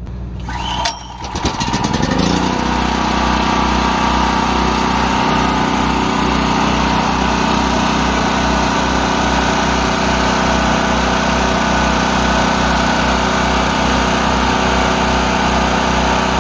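Champion 4375/3500 portable generator's small single-cylinder four-stroke engine starting for the first time on fresh oil and fuel. It catches about a second in, revs up and settles within a couple of seconds into steady, even running.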